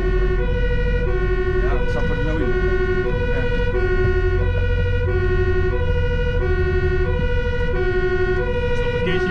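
Fire engine's two-tone siren, switching between a low and a high note about every two-thirds of a second, heard from inside the cab over the steady rumble of the engine and road.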